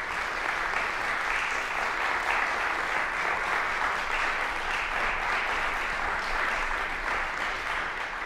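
Audience applauding steadily, a dense clapping that keeps up throughout.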